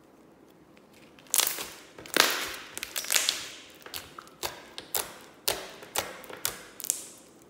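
Slime being squeezed and worked by hand: about a second in, a string of around a dozen sharp pops and crackles begins, each fading quickly. The loudest come first, and the sounds stop shortly before the end.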